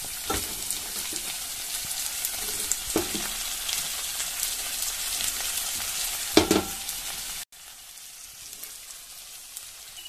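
Cicadas, sliced onions and green chillies sizzling and crackling in hot oil in a frying pan, with three short knocks as the pan is stirred. About seven and a half seconds in the sizzle drops abruptly to a softer level.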